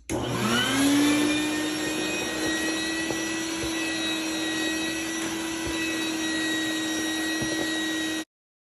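Vacuum cleaner switched on: its motor spins up with a rising whine over about a second, then runs steadily with a rush of air as it sucks dust out of the dryer cabinet. It cuts off abruptly near the end.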